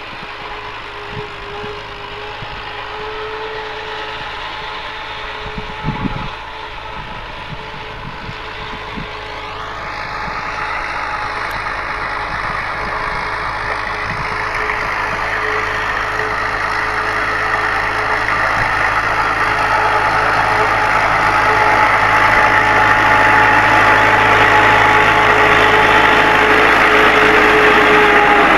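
NH Dabang 85 tractor's diesel engine running steadily under load as it pulls a disc harrow through the soil, growing louder as the tractor approaches. A short knock about six seconds in.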